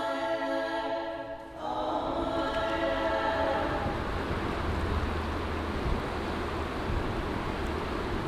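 Background music of sustained choir-like chords, changing chord about one and a half seconds in and fading out by about four seconds in. It gives way to a steady rushing noise.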